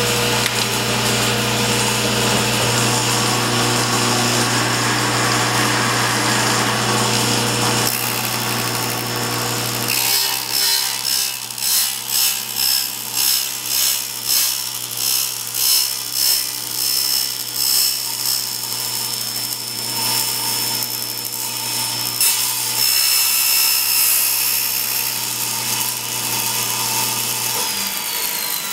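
General 350 table saw running and cutting into a plexiglass sheet held down over the blade. A steady motor hum comes first; then the cut pulses about once a second for around ten seconds before steadying. The motor winds down near the end.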